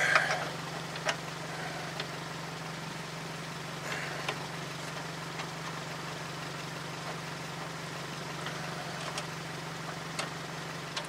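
A few scattered light metal clicks and taps as a lower ball joint bolt is worked and threaded by hand into the steering knuckle, over a steady low hum.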